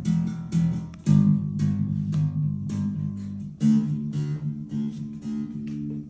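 Electric bass played through a small practice amp: a line of plucked, repeated low notes in a steady rhythm, about two note attacks a second, with a brighter strummed guitar sound over it.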